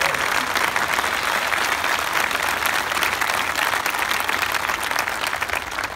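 A large seated audience applauding, many people clapping at once in a dense, even patter.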